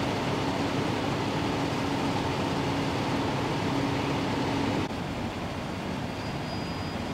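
Steady drone of idling fire-truck diesel engines with a low hum. It drops to a quieter steady rumble about five seconds in.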